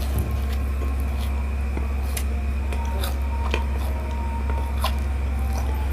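A person chewing a peanut-filled fried pastry (wadai untuk-untuk), with a few faint, crisp crunching clicks scattered over a steady low hum.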